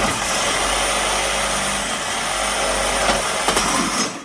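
Power saw cutting through a metal drive axle, running steadily under load, then stopping suddenly at the end.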